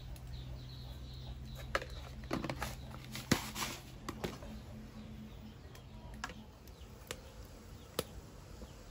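Scattered light clicks and knocks, about one every second or so, with faint bird chirps in the first second or two and a low hum underneath that fades out about halfway through.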